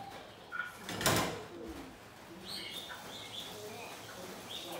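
Birds calling with short high chirps in the second half, and a brief clatter about a second in, the loudest sound.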